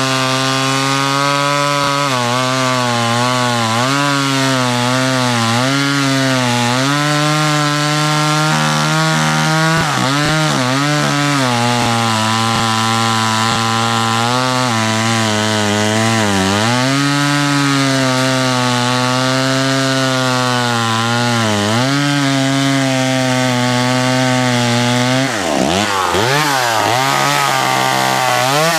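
Small vintage two-stroke chainsaw cutting through a wooden stump under load, its engine pitch wavering as it bogs and picks up again. Near the end the engine speed drops sharply, then revs up and down.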